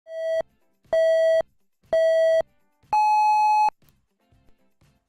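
Electronic beeps in a race-start countdown pattern: three short beeps about a second apart at one pitch, then a longer, higher final beep, each with a buzzy tone.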